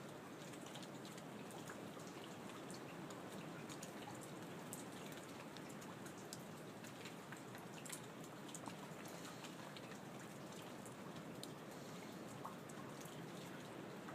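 Light rain falling steadily, with many individual drops tapping close by, scattered irregularly through it.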